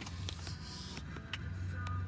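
Music playing from a radio over a low, steady hum, with a few faint clicks.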